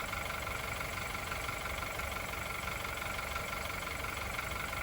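A car engine idling steadily, an even hum with a faint steady whine above it.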